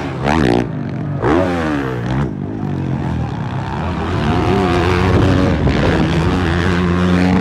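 Motocross dirt bike engines at full race throttle. In the first two seconds the pitch swoops quickly down and back up as a bike jumps and passes close; after that comes a steadier, held engine note.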